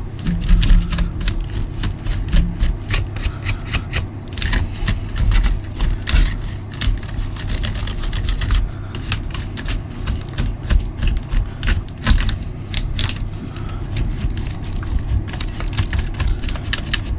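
Stiff brush scrubbing caked dried mud off an RC buggy chassis: fast, irregular scratchy strokes over a steady low rumble.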